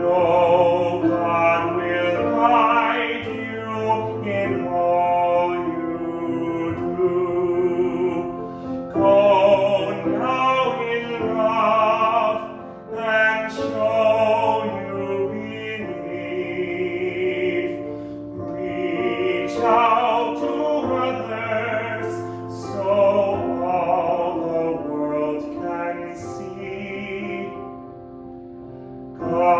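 Solo voice singing a slow hymn with a wide vibrato, phrase by phrase, over a grand piano accompaniment.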